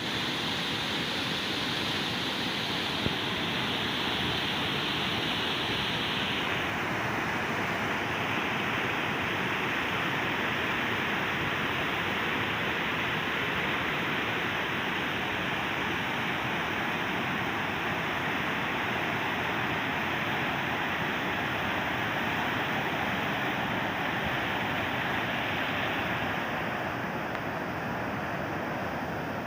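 The Swat River in flood: fast, turbulent floodwater rushing steadily.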